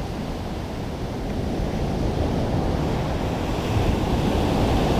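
Ocean surf breaking and washing up a sand beach, the rush of white water swelling slowly toward the end.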